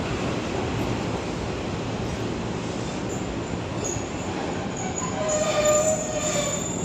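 Keihan electric train pulling into the platform, its running noise steady, with a high-pitched squeal setting in about five seconds in.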